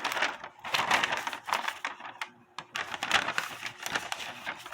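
Paper instruction sheets rustling and crinkling as they are handled, in irregular bursts with a few sharp crackles, briefly quieter near the middle.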